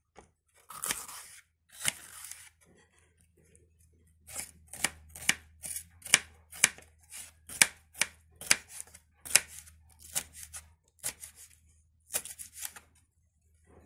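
Kitchen knife cutting a green bell pepper on a wooden board: two longer slicing cuts in the first couple of seconds, then a steady run of sharp knife strikes on the board, about two a second, as the pepper is chopped into pieces.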